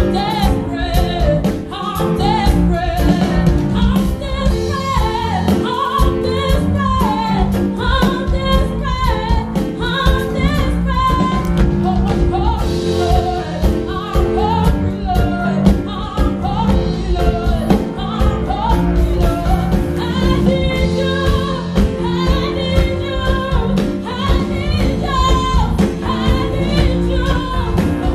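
A woman singing a Christian worship song live into a handheld microphone, amplified, over accompaniment with a steady beat and sustained chords.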